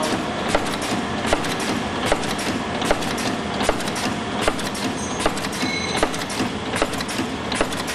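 Multi-track four-side-seal sachet packing machine running: a steady mechanical clatter from its sealing and feed mechanism, with a sharp click that repeats evenly a little more than once a second.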